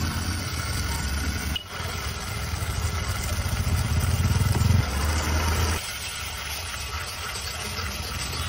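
Steady low mechanical rumble with a fine even pulse, like an engine or motor running, breaking off briefly about one and a half seconds in and dropping in level about six seconds in.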